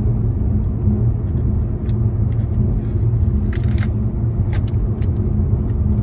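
Steady low road and engine rumble inside a car driving on a highway, with a few faint brief ticks around the middle.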